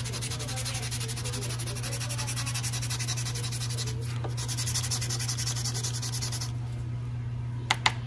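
Bicycle disc brake pad rubbed rapidly back and forth by hand on 220-grit wet-and-dry sandpaper, a fast scratchy scraping that pauses briefly about four seconds in and stops at about six and a half seconds. The sanding takes off the shiny glaze left by contamination on the pad surface. Two light clicks come near the end.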